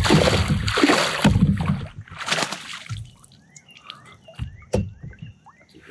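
A landing net scooping a smallmouth bass out of the river beside a kayak, with loud splashing and sloshing for about the first two and a half seconds. After that it is much quieter: a bird gives short falling chirps about twice a second, with a couple of sharp knocks.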